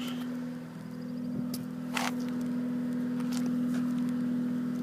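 A steady, even engine hum, with a few short clicks over it.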